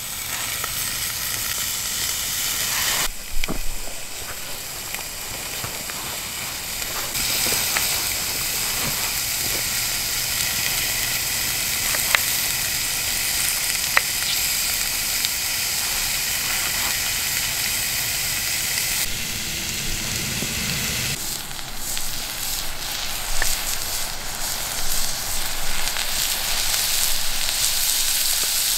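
Cubed bacon sizzling as it fries in a cast iron Dutch oven over a wood fire: a steady hiss that drops and comes back abruptly a few times, with a few sharp crackles.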